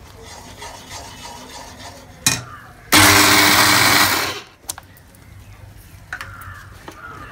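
Electric mixer-grinder run in one short pulse of about a second and a half, grinding peanuts in its steel jar, with a knock of the jar just before it and a few light clicks after.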